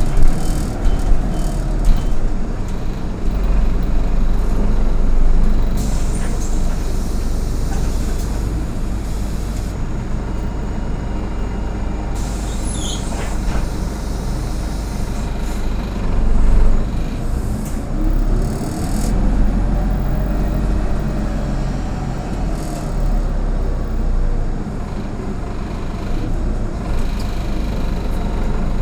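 Autosan Sancity M09LE city bus heard from on board while riding: the engine runs with a steady low drone, rising in pitch around two-thirds of the way through as the bus speeds up, with a couple of hisses of air from the brakes or doors.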